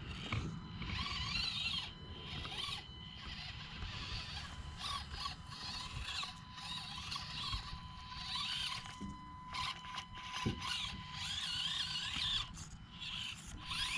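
Axial SCX24 micro RC crawler's small electric motor and gears whining. The pitch rises and falls with throttle as the crawler works its way over obstacles.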